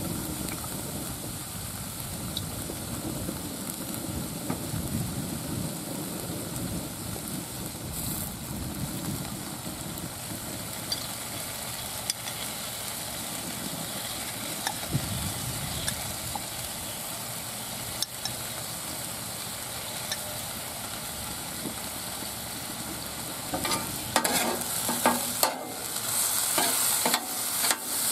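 Ground beef and onions sizzling steadily on a Blackstone flat-top griddle. In the last few seconds a metal spatula scrapes and taps against the steel cooktop in a quick run of strokes.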